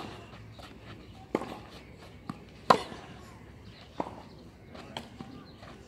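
Tennis ball being hit back and forth in a rally: sharp pops of the ball off the racket strings roughly every one and a half seconds, with a softer bounce of the ball on the clay court between them. The loudest hit comes a little before halfway through.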